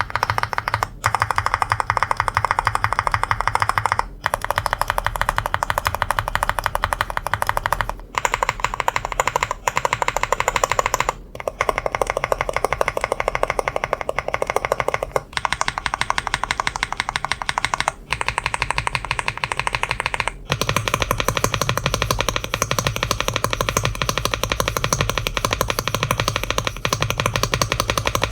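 Fast, continuous typing on a Womier S-K71 mechanical keyboard: a dense stream of key clicks with a few short breaks.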